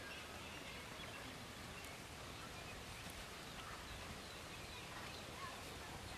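Faint, steady outdoor background noise with a few faint bird calls.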